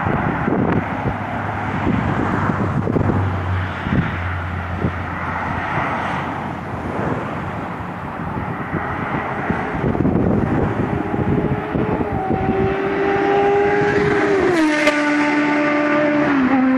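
Motorway traffic and wind at first, then the inline-four engine of a BMW K1200R motorcycle held at a high, steady pitch at top speed, about 285 km/h, dropping sharply in pitch as it passes, with a smaller drop near the end.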